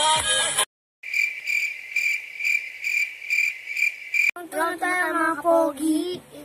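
Cricket chirping in a steady pulse, about two chirps a second, beginning abruptly after a brief silence. A child's voice takes over about four seconds in.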